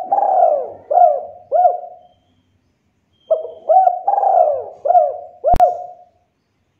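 Spotted dove cooing: two phrases of repeated coo notes, the first dying away about two seconds in and the second beginning just over a second later. A sharp click falls near the end of the second phrase.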